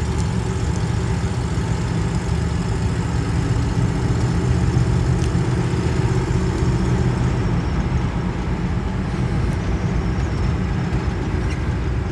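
A 1956 Chevrolet four-door sedan cruising, heard from inside the cabin: a steady low rumble of engine and road noise at an even speed.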